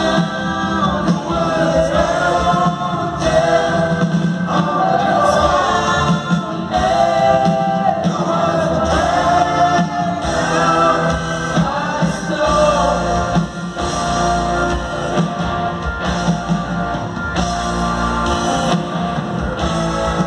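Live rock band playing with singing and backing vocals, heard from high in the stands of an arena.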